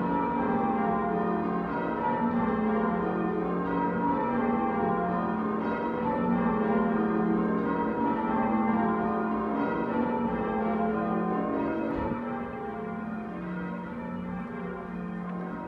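Church tower bells being change-rung by ringers on ropes: a continuous, evenly paced sequence of overlapping bell strikes, each ringing on into the next. The bells grow somewhat fainter in the last few seconds.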